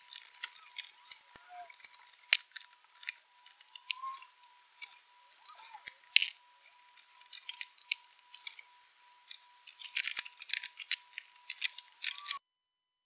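Screwdriver and screws clicking and rattling against the metal chassis of an HP4275A LCR meter as it is screwed back together. There are many quick, irregular metallic clicks over a faint steady high tone, and the sound cuts off suddenly shortly before the end.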